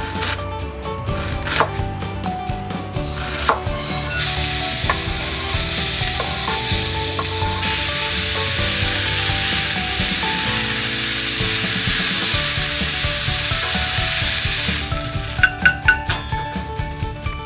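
Minced onion sizzling as it sautés in a cast-iron skillet and is stirred with a wooden spatula. The sizzle starts about four seconds in and cuts off sharply about three seconds before the end. Before it come a few knife strokes on a wooden cutting board, with soft background music throughout.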